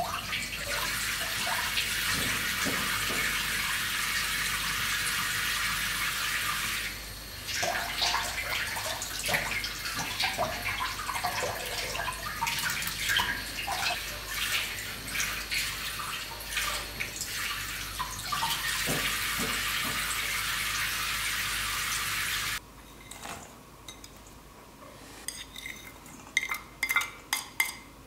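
Tap water running steadily into a sink, with dishes clattering in it. The water shuts off suddenly a little over 22 seconds in, and a few light clinks of cutlery and dishes follow near the end.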